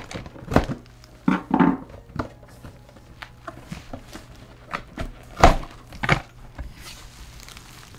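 Box cutter slicing through a cardboard glassware box and the box being pulled open: short scraping cuts and handling noise with a few sharp knocks, the loudest about five and a half seconds in.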